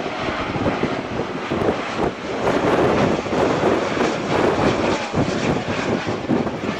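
Jet airliner engine noise, a loud, steady rushing sound from a plane on or near the runway.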